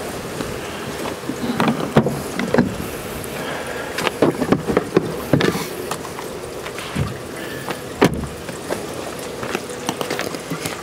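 Water being poured into a truck's radiator, sloshing and splashing, with irregular knocks and clatter of handling every second or two.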